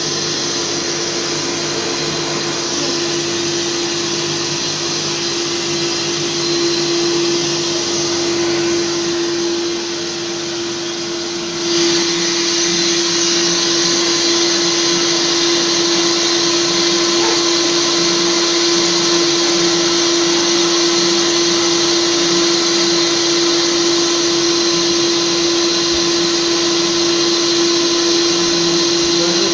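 Kärcher washing (wet-extraction) vacuum cleaner running continuously, a rush of air with a steady hum through it. About twelve seconds in it dips briefly, then comes back louder and stays steady.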